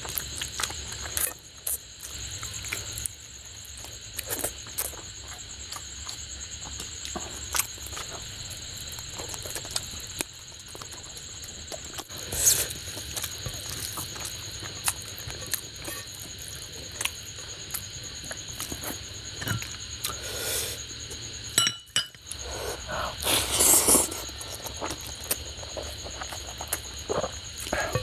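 Close-miked eating by hand: wet chewing and lip smacking, with fingers squishing and mixing curry-soaked rice and fish on a plate, over a steady faint high whine. A few louder bursts of mouth noise stand out about twelve seconds in and again near the end.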